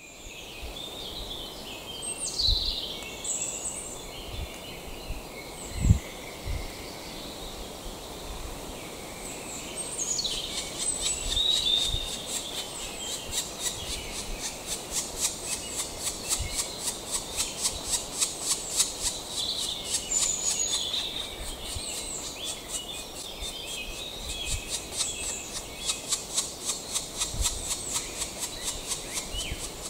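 Woodland birdsong: a high phrase that falls in pitch, heard three times, and from about halfway on a fast, even run of short high calls, several a second. A single low thump about six seconds in.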